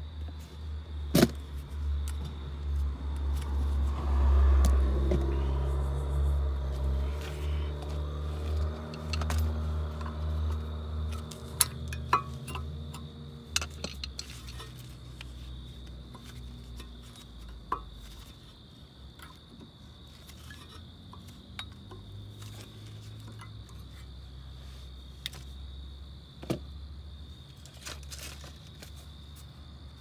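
Light metal clinks and taps as brake pads and their metal hardware are handled and seated in the caliper bracket, with a handful of sharp clicks spread through. A low engine rumble swells in the first few seconds and fades out about halfway, over a steady high cricket chirring.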